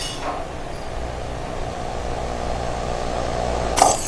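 Low, steady droning ambience from the cartoon's soundtrack. Near the end comes one short, sharp smash, a light bulb breaking.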